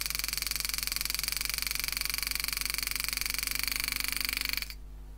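Homemade hand engraving machine's pneumatic handpiece driving a 98° carbide graver into 304 stainless steel: a fast, even buzz of strikes that cuts off suddenly near the end, leaving a low hum.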